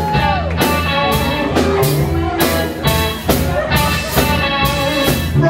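Live rock band playing an instrumental stretch between sung lines: electric guitar over bass and drums keeping a steady beat.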